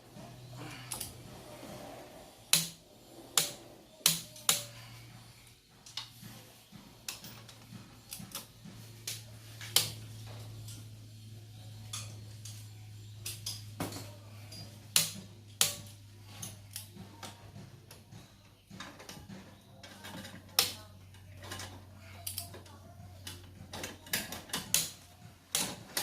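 Irregular sharp clicks and metallic knocks of hand tools and engine parts being handled during engine assembly, some in quick runs, over a low steady hum.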